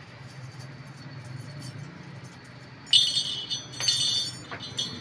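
Thin, tooth-notched galvanized-iron sheet strip clinking and rattling with a tinny ring as it is handled and bent into a ring shim, starting about three seconds in, with a couple of sharp clicks. A low steady hum sits underneath.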